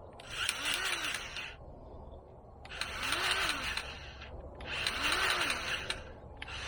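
Cordless grease gun pumping grease into a zerk fitting on a tractor loader joint, its motor running in four short bursts about two seconds apart, the whine rising and falling with each pull of the trigger.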